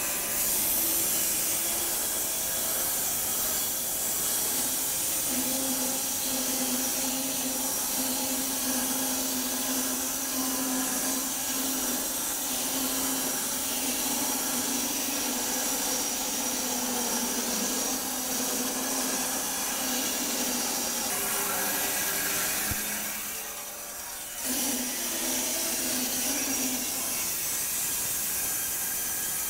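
Homemade wide-cut bandsaw mill, its electric motor driving the band blade through belts, sawing a very wide cut across elm cants laid side by side: a steady sawing hiss with a humming tone. It is loaded but not straining, with no squealing from slipping belts. The sound dips briefly about 23 seconds in, then picks up again.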